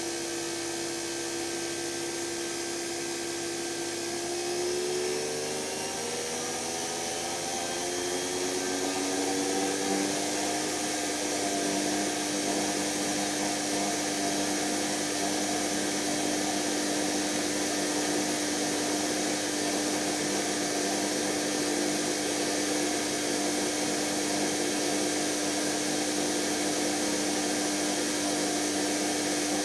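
Electra ELEC1647A3 washing machine's brushed drum motor running with a steady whine. Its pitch shifts about a third of the way in, then holds steady. The motor is failing: its commutator is damaged.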